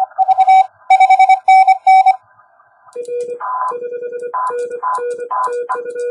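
Morse code on 10-metre CW from a QRP transceiver's speaker. For about two seconds a clean keyed tone sends dots and dashes. After a short pause a lower-pitched Morse signal comes in, with bursts of receiver hiss between its elements.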